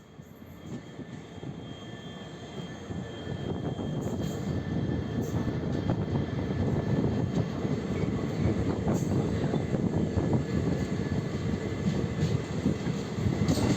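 Passenger train running along the line: a steady rumble and rattle of wheels and coach, growing louder over the first few seconds.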